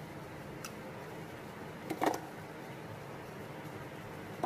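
Quiet kitchen room tone with a faint tick, then about two seconds in a short clink of a spoon against the dishes as thick ground chutney is spooned into a small bowl.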